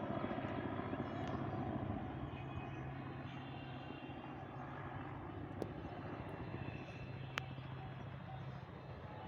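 Helicopter in flight, a steady engine and rotor drone that slowly grows fainter as it moves away. Two sharp clicks sound over it in the second half.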